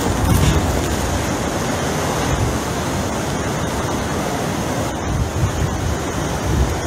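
Hurricane-force wind and driving rain: a loud, steady rush with low rumbling wind buffeting on the microphone, swelling in gusts.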